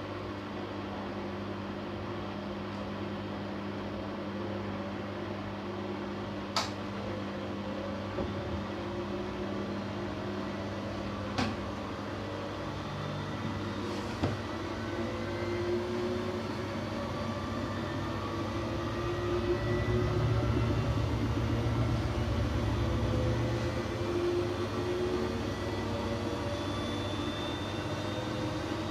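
Siemens Siwamat iQ 716 washing machine running, its motor whine rising slowly in pitch as the drum gathers speed over a steady low hum. Three sharp clicks come in the first half, and a louder low rumble swells about two-thirds of the way through.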